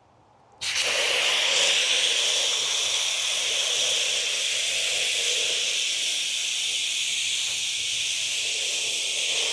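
Pressure washer spraying: a steady hiss of the water jet that starts about half a second in, after a brief silence, and runs evenly on.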